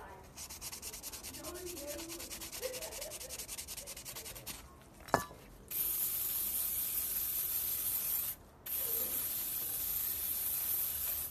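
A scouring pad scrubbing rust off steel pliers in quick, even strokes, about six or seven a second. After a sharp click, a loud steady hiss follows, stopping abruptly for a moment and then starting again.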